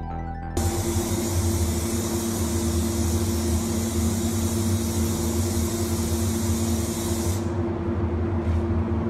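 Compressed-air spray gun hissing as it sprays finish, over a steady low hum. The hiss starts suddenly about half a second in and cuts off about seven seconds in, while the hum runs on.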